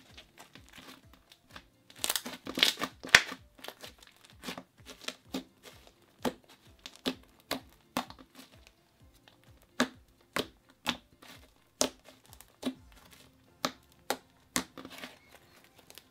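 Thick clay-like foam slime being squeezed, pulled and poked by hand, giving sharp crackling pops and clicks. The loudest crackles bunch up about two to three seconds in, and after that single pops come about once or twice a second. Soft background music plays underneath.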